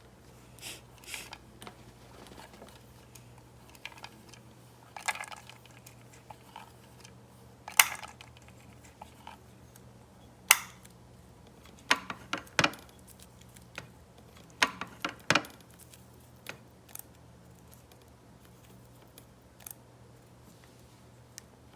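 Irregular clicks and taps of small hard toy pieces being handled and set down, some in quick clusters, over a faint steady low hum.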